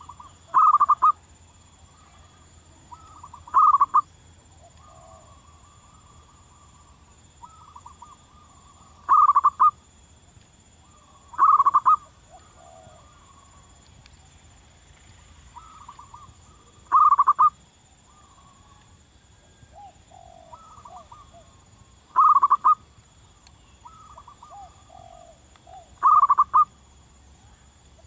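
Zebra dove cooing: seven loud, short phrases of rapid staccato coos a few seconds apart, with softer cooing between them.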